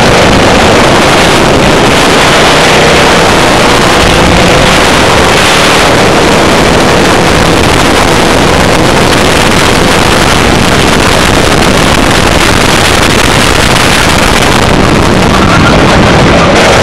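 Racing kart's engine running at speed, heard from an onboard camera and mixed with heavy wind noise on the microphone. It is very loud and steady throughout.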